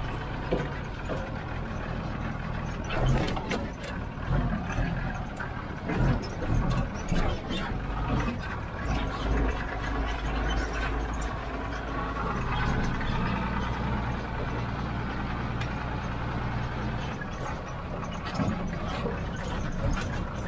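Old Tata S model 4x4 truck driving on a rough dirt road: the engine runs with a steady low drone while the body and bed rattle and knock over bumps, with several sharp knocks in the first half.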